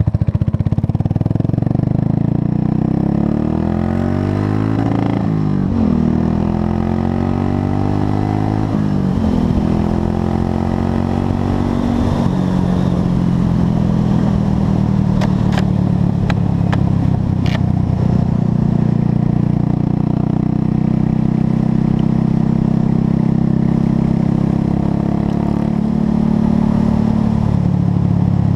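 Buell Blast's single-cylinder engine accelerating through the gears, its pitch climbing and dropping back at shifts about five and nine seconds in, then running steadily at cruising speed.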